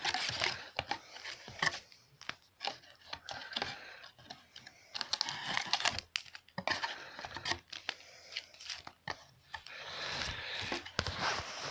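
Trading card packaging being torn open and handled: irregular tearing, crinkling wrapper and sharp clicks of cardboard, in rustling bursts that are louder near the start and again near the end.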